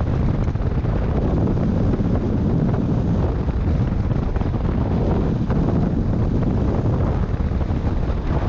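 Airflow buffeting the microphone of a camera mounted on a hang glider in flight: a steady, loud low rumble of wind noise.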